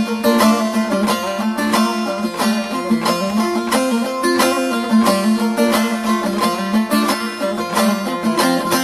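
Instrumental music led by a plucked string instrument playing a quick run of notes.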